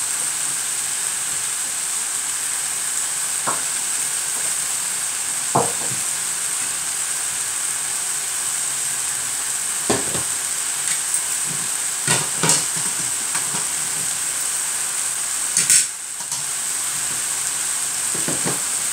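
Vegetables and chicken sizzling steadily in hot oil in a cooking pan. A utensil stirring them knocks against the pan now and then, about six times, loudest about three-quarters of the way through.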